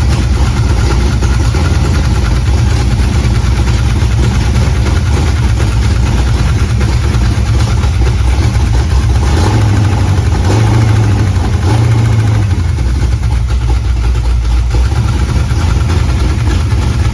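Small-block Chevy 355 V8 running with a persistent tick. The distributor cap has been knocked cockeyed, so the rotor is rubbing the distributor wall.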